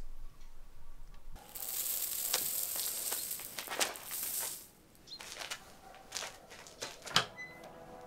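Bird seed poured from a cup onto a concrete porch floor: a hiss of many small grains pattering down for about three seconds, then a few scattered ticks as stray seeds land.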